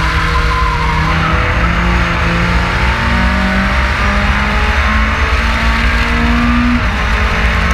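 EXR LV02 race car engine running hard, heard from a camera on the car's bodywork, its note climbing and stepping back several times through the gears. A brief tyre squeal comes in the first second.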